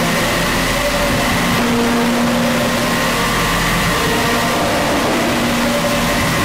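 Power-noise track: a dense, unbroken wash of noise with a steady low hum and held tones at several pitches that fade in and out every second or two, engine-like in character.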